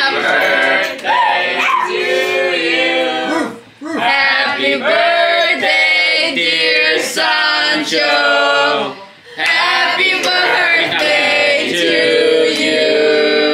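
A group of people singing a birthday song together, in phrases with two short breaks.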